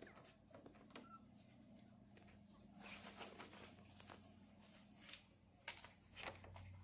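Near silence with a faint low steady hum and a few soft clicks and rustles: a Cairn terrier licking newborn puppies and shifting on a blanket.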